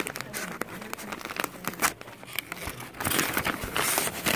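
White tissue wrapping paper crinkling and rustling as hands pull it apart and lift it. The crackling gets denser and louder about three seconds in.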